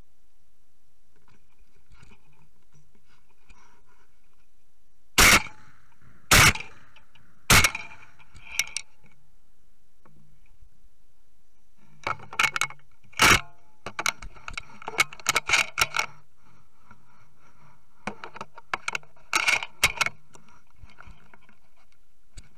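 Three shotgun shots about a second apart, each a sharp report with a short ringing tail. They are followed by two bouts of rapid clicking and rattling from the gun being handled.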